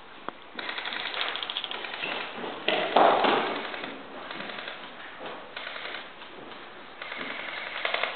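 Airsoft guns firing in rapid full-auto bursts, several strings of fast clicking, the loudest about three seconds in.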